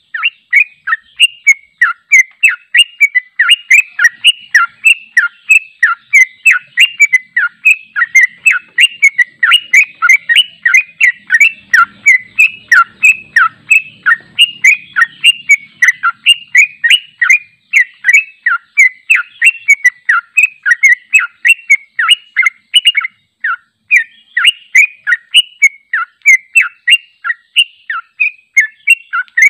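Yellow-vented bulbul singing a long, fast rolling song: a continuous run of short chattering notes, about three a second, with one short break near the end.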